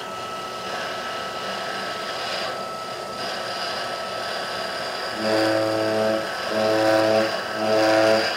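Metal lathe running while its cutting tool trims the end of a muzzle brake on a rifle barrel, with a steady hum and a thin whine. About five seconds in, a louder low droning tone starts and stops four times, each time for under a second.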